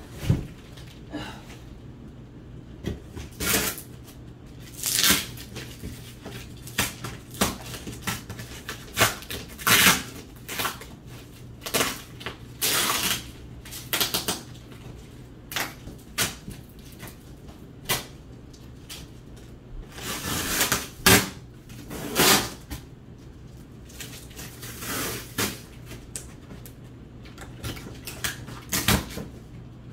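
A large cardboard shipping box being opened by hand: packing tape ripping and cardboard flaps tearing and rustling in irregular bursts, some short, some drawn out for about a second.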